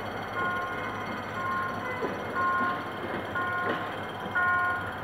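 Level crossing warning signal sounding a repeated electronic chime, about one chord of tones a second, over the rumble and occasional wheel knocks of a passenger train rolling away.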